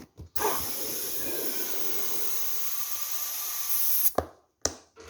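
Compressed air from an air compressor hissing steadily into a soccer ball as it is inflated. The hiss starts about a third of a second in, runs for about four seconds and cuts off, followed by two short knocks.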